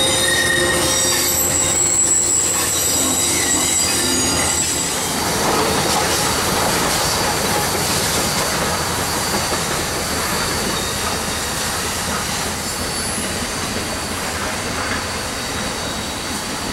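Passenger train passing, its wheels squealing on a curve with several high steady tones for the first few seconds. After that the squeal stops and a steady rushing train noise carries on.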